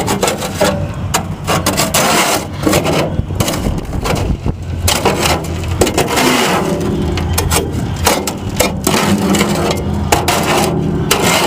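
Shovel scraping and knocking as the last of the wet concrete is scraped into a post hole, in repeated irregular strokes. A steady low engine hum runs underneath.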